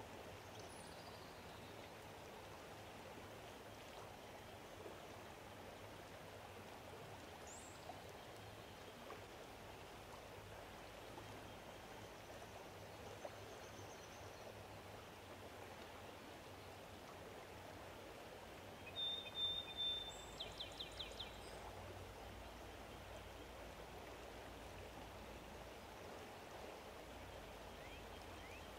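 Faint, steady outdoor ambience, a low even hiss, with a few faint high bird chirps. About two-thirds through, a bird calls louder: one held high whistle followed by a quick run of about six sharp notes.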